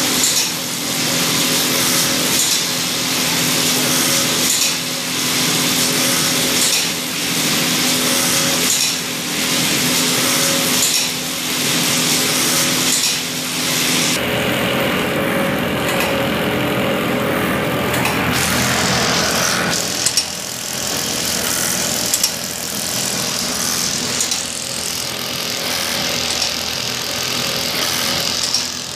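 Automatic bag stitching machine running: a steady motor hum under a loud mechanical chatter that swells and falls about every two seconds, with a sharp click about two-thirds of the way in.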